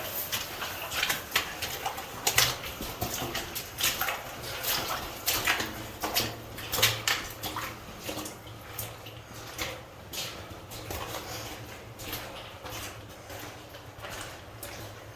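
Footsteps splashing and scuffing through shallow water on a rock tunnel floor, irregular steps with water sloshing. The steps thin out in the second half.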